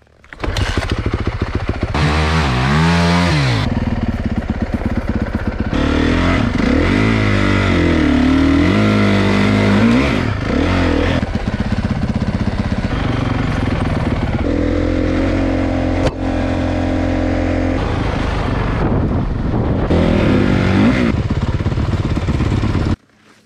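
Dirt bike engine running under way, heard from the rider's seat, its revs rising and falling with the throttle and gear changes. The sound cuts off abruptly near the end.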